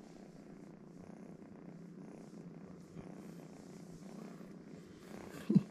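Steady, faint purring rumble from a pet held close, with one brief louder sound about five and a half seconds in.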